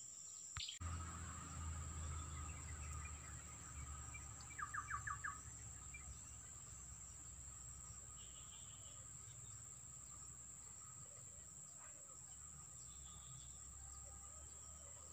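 Insects chirring steadily in a high and a lower pitch, with a short bird call of about five quick notes around five seconds in and a low rumble over the first few seconds.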